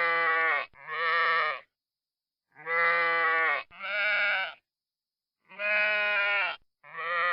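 Sheep bleating in three pairs, each a longer bleat followed by a shorter one, with a wavering tremble in the pitch.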